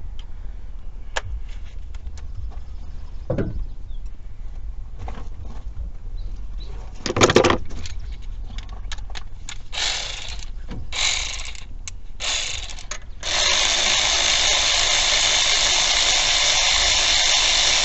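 A handheld power tool, of the kind used to back out engine accessory bolts, runs in a few short bursts and then steadily for about four and a half seconds near the end. Lighter clicks and knocks of tools on metal come before it.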